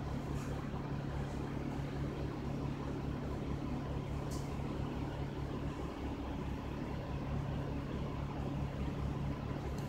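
Double-decker bus's diesel engine idling, heard from inside the bus: a steady, fast low throb with a hum over it. A brief high hiss about four seconds in.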